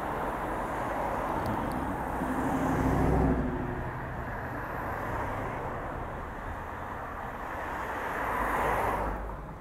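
City street traffic: cars driving past, one engine swelling loudest as it passes close about three seconds in, and another vehicle passing near the end.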